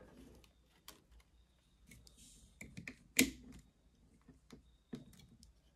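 Light clicks and taps of hard plastic figure parts being handled and pushed together as a hair-spike piece is worked into a slot on the figure's head. The clicks are scattered and irregular, with one sharper click a little past three seconds in.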